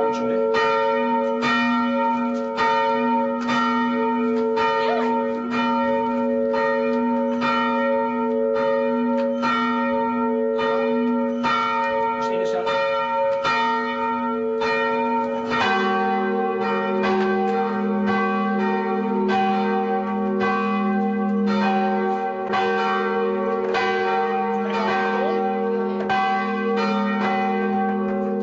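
English church bell rung by hand from a rope in the tower, its clapper striking in an even rhythm of strokes, each one ringing on into the next. About halfway through, the ringing changes to a lower-pitched bell.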